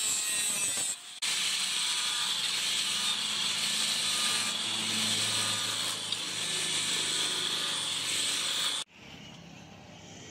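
Angle grinder with a sanding disc grinding a spring-steel knife blade, running steadily with a short break about a second in. It cuts off abruptly near the end, leaving a quieter steady background.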